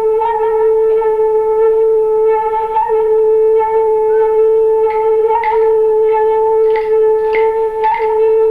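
Instrumental music: a single sustained note with a reedy, wind-like tone held without a break, with light taps or plucked notes over it, more often in the second half.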